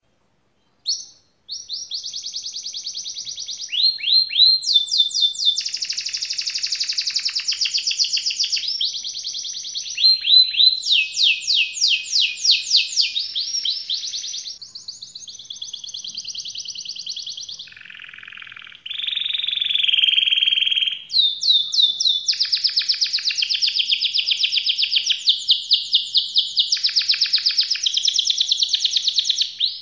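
Domestic canary singing a long, unbroken song of rolling trills: phrase after phrase of fast repeated high notes, each held a second or two before switching to the next. About two-thirds through comes a lower, rougher phrase.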